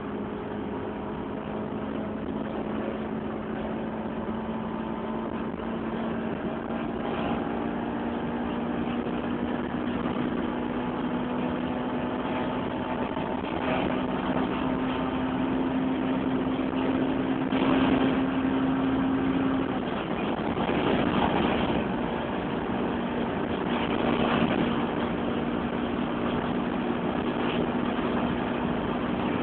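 Toyota Celica T-Sport's 1.8-litre VVTL-i four-cylinder engine running at high revs near top speed, heard from inside the cabin over steady wind and road noise. Its note slowly rises in pitch as the car gains speed, drops away briefly about twenty seconds in, then comes back.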